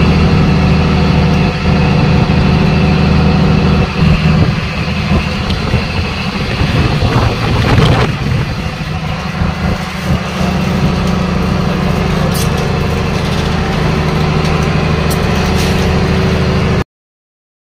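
Fishing boat's engine running steadily with a low hum, with a brief rush of noise about eight seconds in; the sound cuts off suddenly near the end.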